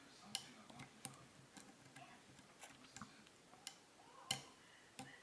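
Faint, scattered clicks of a lock pick working the pin stacks inside a brass ABUS Mariner padlock under turning tension, about one every half second to second, the sharpest about four seconds in; the pins are being set one by one as the core begins to turn.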